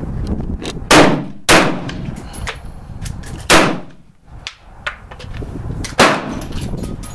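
Four shots from an FMK 9C 9mm pistol: two about half a second apart about a second in, then one in the middle and one near the end, each trailing off briefly.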